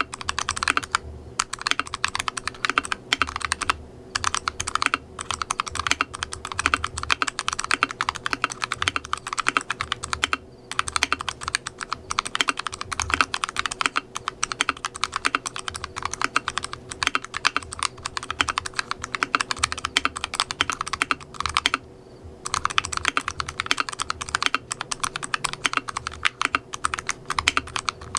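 Fast continuous typing on an Akko ACR59 compact mechanical keyboard fitted with smoked PBT keycaps and internal dampening (foam, tape mod, silicone and spacebar dampeners): a dense stream of key clicks and thocks, broken by a few short pauses, the longest near 22 seconds.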